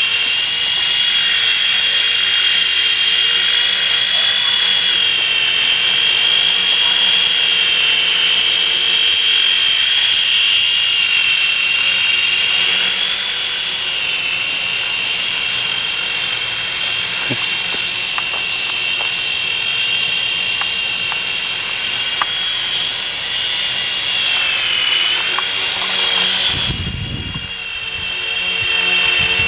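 Mini RC Chinook toy helicopter's small electric motors and rotors whining steadily at a high pitch, the pitch wavering slightly now and then. Near the end the whine briefly drops in level, with a low rumble underneath.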